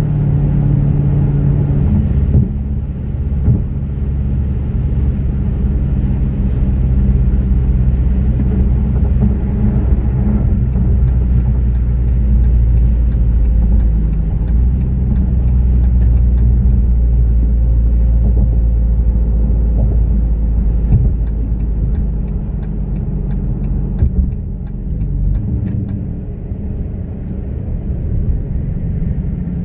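Dodge Challenger R/T's 5.7-litre Hemi V8 cruising at freeway speed, a steady low drone mixed with road noise, heard inside the cabin. Twice a light ticking of about three a second runs for several seconds.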